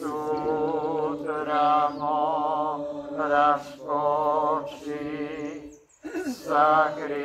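A voice singing a slow Croatian religious song, holding long notes with a wavering vibrato, with a short break for breath about six seconds in.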